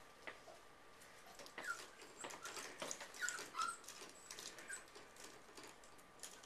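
Miniature pinscher mix puppy whimpering faintly in several short, high, falling whines, mixed with light scattered clicks and taps.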